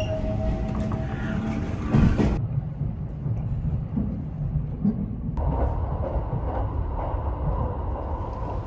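Train running: a steady low rumble that changes abruptly twice, about two and a half and five and a half seconds in, as the sound jumps between clips.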